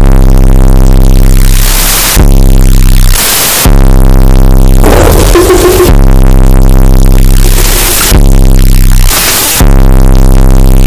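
Harsh noise electronic music: a loud, distorted synthesizer drone on a steady low buzzing pitch, hit every couple of seconds by blasts of hissing noise, with falling sweeps in between.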